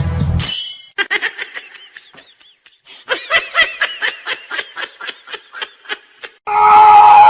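A person laughing in a long run of short, quick bursts, about three or four a second. Backing music cuts off just before it, and a loud sound with steady tones starts near the end.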